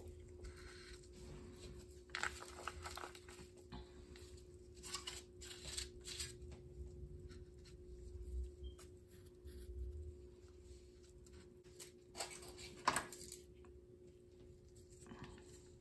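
Faint, scattered rubbing and scraping as grout is wiped and scraped off a small tile mosaic by hand, with a couple of sharper scrapes, over a steady low hum.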